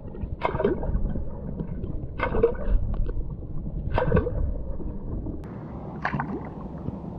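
Versamax Bolt Pro Series popping cork being popped four times, about two seconds apart. Each pop is a short gurgling splash that comes mostly from the cork's cup face pushing water, heard through an underwater microphone. Near the end the sound is picked up at the surface instead.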